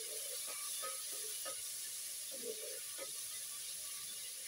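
Liver and onions frying in oil in a metal pot: a steady sizzle, with a few faint clicks.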